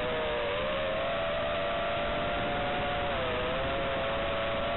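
FPV racing quadcopter's brushless motors and propellers whining, heard from the onboard camera over the analog video link under steady radio hiss. Several close tones waver with throttle and dip briefly about three seconds in.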